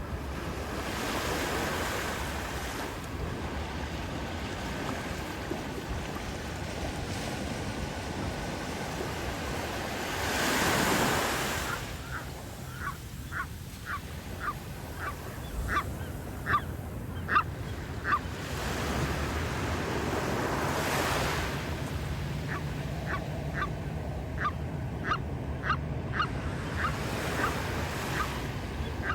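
Surf breaking and washing up the shore in repeated swells, one noticeably louder about a third of the way in. Over it, past the middle, a gull gives two runs of short, quick calls, about two a second.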